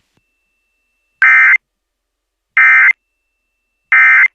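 Emergency Alert System end-of-message (EOM) signal: three short, buzzy digital data bursts a little over a second apart, marking the end of the warning broadcast.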